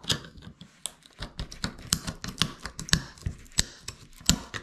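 Flat-blade screwdriver prying and scraping at the metal shield over the processor on a cordless phone's circuit board: a quick, irregular run of sharp metal clicks and scrapes.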